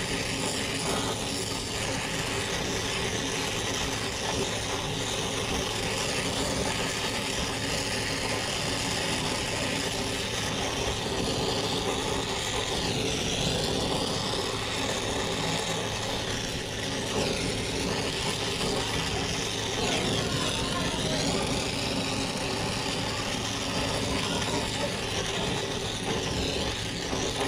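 Oxy-acetylene brazing torch flame burning with a steady hiss as it heats a copper suction-line joint on a refrigeration evaporator coil.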